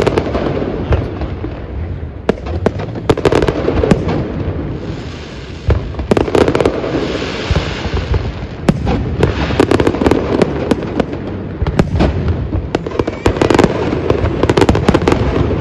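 Fireworks display: a steady barrage of aerial shell bursts with many sharp cracks over a low rumble. Partway through, a crackling hiss rises for a few seconds.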